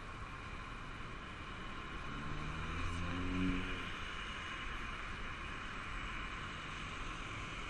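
Steady hiss of passing road traffic. One vehicle's engine note swells and fades as it drives past, loudest a little over three seconds in.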